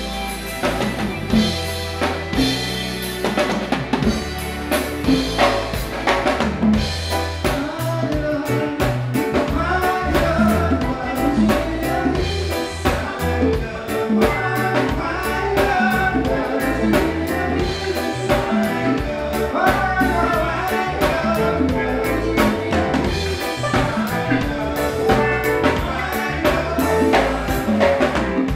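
A live band playing: a drum kit keeps a steady beat with snare and rim hits, under guitar and a singer on microphone through the stage PA.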